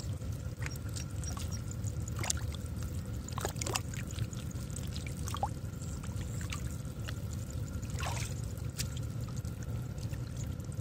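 Gloved hands groping through shallow muddy water and mud, sloshing and splashing, with a handful of sharper splashes scattered a second or two apart over a steady low rumble.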